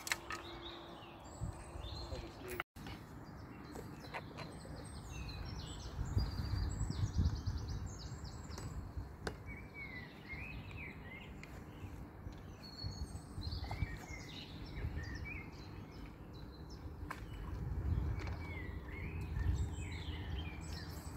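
Several songbirds singing and calling, a steady run of short chirps and warbles, over an uneven low rumble that swells about six seconds in and again near the end. A brief dropout about three seconds in.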